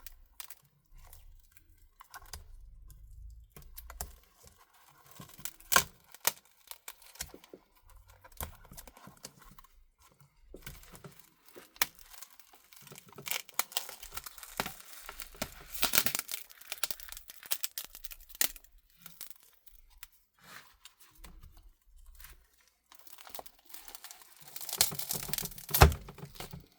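Cracked front glass (digitizer) of a Samsung Galaxy Tab A T580 being peeled and pried off its frame: adhesive tearing with irregular crackling and small clicks of broken glass, loudest around the middle and again near the end.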